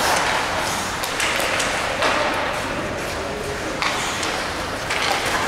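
Ice hockey play in an echoing rink: several sharp clacks and knocks of sticks, puck and boards over a steady din of the arena.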